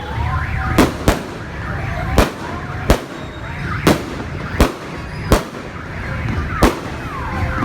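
Aerial fireworks bursting, about seven sharp bangs roughly a second apart over a low rumble, with whistling tones gliding in pitch between them.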